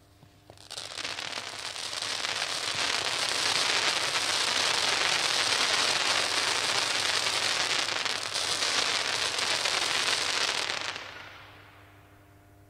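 Consumer firework battery (cake) firing continuously, a dense crackling and hissing that builds up over the first couple of seconds, holds for about ten seconds and then dies away.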